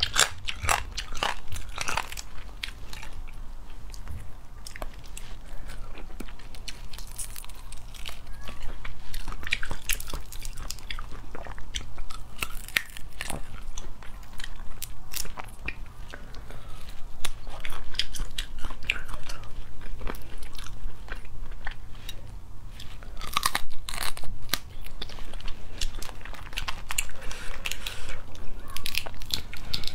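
Boiled crayfish shells cracked and peeled apart by hand, with biting and chewing of the meat: irregular sharp cracks and crunches that come in clusters.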